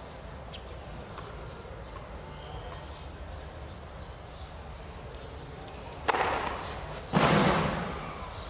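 Faint court ambience with a few light ticks, then two loud whoosh effects of the kind that go with a broadcast replay transition: the first about six seconds in, the second a second later, louder, sweeping down as it fades.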